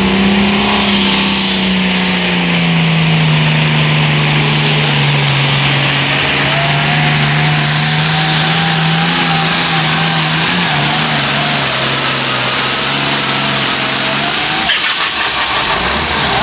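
International 1466 hot farm pulling tractor's turbocharged diesel engine running at full power while dragging a weight-transfer sled, its pitch sagging slightly as the load builds over the first few seconds, then holding. Near the end the engine lets off and a high whistle falls steadily in pitch.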